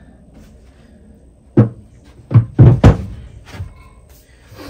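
Metal quick-hitch parts with their hydraulic hoses clunking down onto the floor. There are a handful of sharp knocks about one and a half to three seconds in, three of them close together, each ringing briefly.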